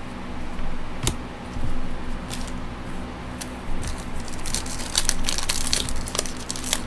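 Trading card pack wrapper crinkling and cards being handled, a sharp click about a second in and the crinkling growing dense in the second half, over a steady low hum.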